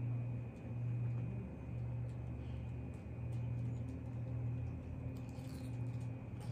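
Forks clicking lightly against ceramic salad plates during eating, a few faint clicks mostly in the second half, over a low hum that swells and fades about once a second.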